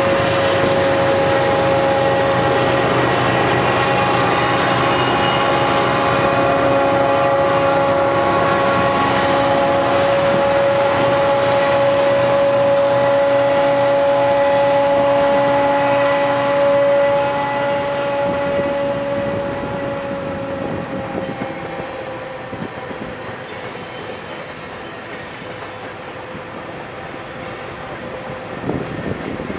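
BNSF diesel freight locomotives passing, engines running with a steady high whine, fading after about seventeen seconds into the rolling of empty coal hopper cars. Faint wheel squeal from the cars on the curve near the end.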